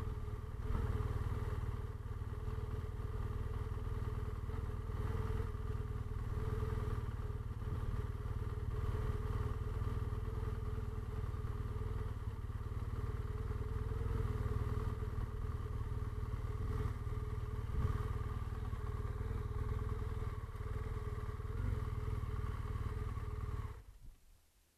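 BMW motorcycle engine running at low speed as the bike rolls slowly, a steady low drone with a hum; it stops abruptly about a second before the end.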